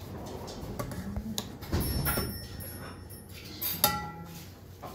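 Stainless tableware knocking and clinking on a wooden table: a few light knocks, a duller thump about two seconds in, and a ringing metal clink near four seconds.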